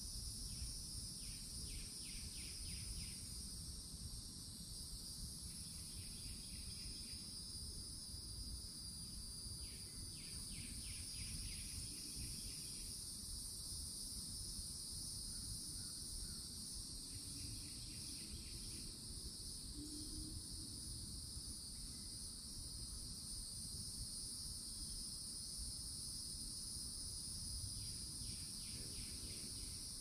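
Cicadas singing in a steady, continuous high-pitched drone. A lower pulsed trill comes in briefly every several seconds over it.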